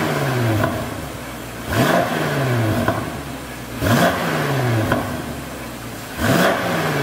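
BMW F90 M5 Competition's twin-turbo V8 blipped from idle three times through a Fi Exhaust valvetronic catback with its exhaust valves closed. Each rev rises sharply and falls back toward idle over about a second.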